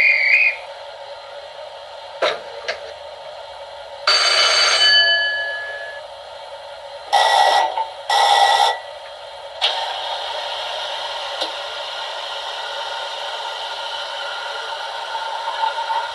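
Sound-fitted O gauge 64xx pannier tank model's DCC sound decoder playing through its small onboard speaker. Several short whistle-like blasts come first, and from about ten seconds in a steady hiss.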